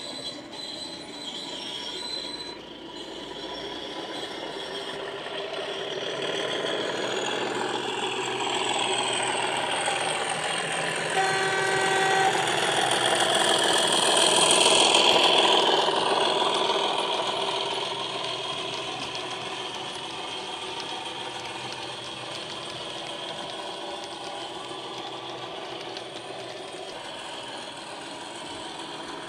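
Accurascale Class 37 model locomotive's factory-fitted DCC sound decoder playing the diesel engine sound through its onboard speaker as the model runs past. The sound grows louder to a peak about halfway, then falls back and carries on more quietly. A single short horn blast sounds just before it passes closest.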